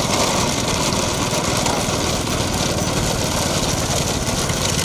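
Engine of the vehicle carrying the camera running steadily as it keeps pace with a racing bullock cart, with wind noise over the microphone.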